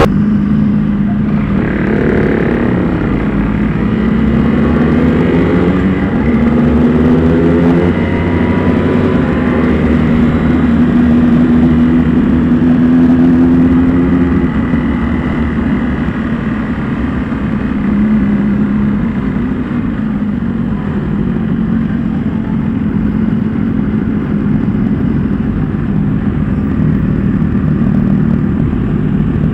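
Motorcycle engine heard on board while riding, its revs climbing in several steps through the first several seconds as it accelerates through the gears, then holding fairly steady with smaller dips and rises.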